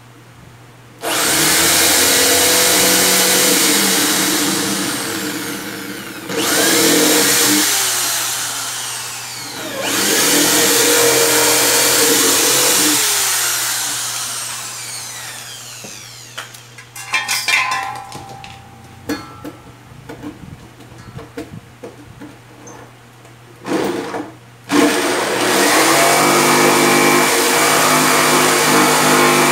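Corded electric drill boring through the top of a speaker box in three runs, each dying away as the motor spins down. Scattered knocks and clatter follow, and near the end a jigsaw starts and runs steadily, cutting the opening for the box's handle.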